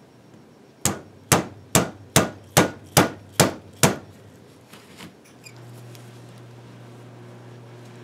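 Eight light, evenly spaced hammer taps on a pin punch, a little over two a second, trying to drive a shaft out of a small odometer gear assembly. A faint steady hum starts about halfway through.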